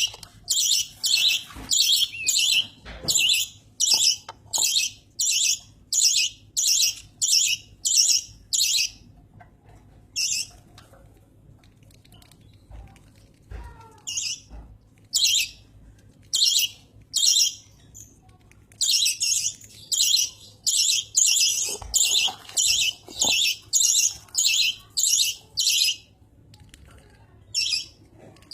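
Budgerigar giving loud, harsh chirping calls over and over, about one and a half a second, in two long runs with scattered single calls and a pause of several seconds between them.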